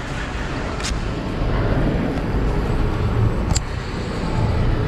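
Steady low rumble of an idling engine, with two short sharp clicks, about one second and three and a half seconds in.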